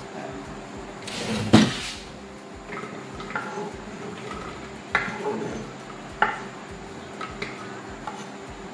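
Knife scraping sliced ginger off a wooden chopping board into a blender jug: one scrape about a second in that ends in a sharp knock, then scattered light taps and clinks as the pieces drop in.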